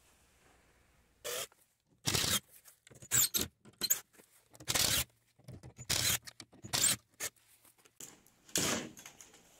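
Cordless drill backing screws out of an OSB shipping crate in a series of short, loud bursts, with a scrape of the board panel as it is pulled away near the end.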